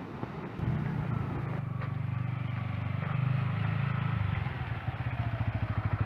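Yamaha motorcycle engine starting about half a second in, then idling with an even pulsing beat that grows louder near the end.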